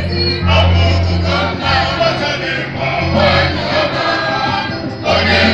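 Church choir singing a piece from an Easter cantata, with steady low bass notes held underneath the voices.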